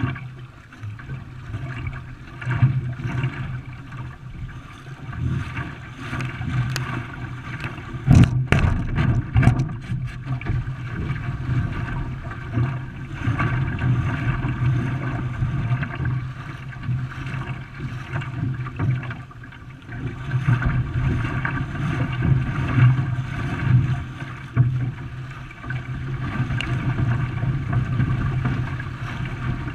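A racing canoe moving through the water, with the rush of water and paddle strokes over a steady low hum. There is a sharp knock about eight seconds in.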